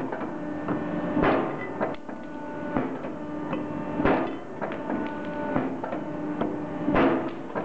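Electric bar shear cutting a round steel bar into short pieces with its profiled blades: a heavy metallic clunk about every one and a half seconds, the loudest about every three seconds, over the steady hum of the running machine.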